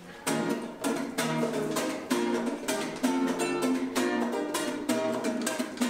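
Acoustic guitar strummed in a lively, even rhythm, its chords starting about a third of a second in.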